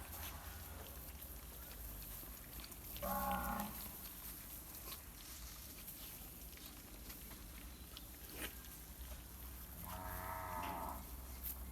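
Two drawn-out, low animal calls, like a cow mooing, one about three seconds in and a longer one about ten seconds in, over scattered small ticks and smacks of puppies eating.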